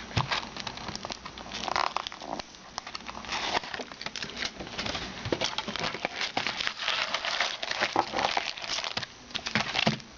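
Crinkling and crackling of wrapped trading-card packs being handled and taken out of their box, with small irregular clicks and rustles.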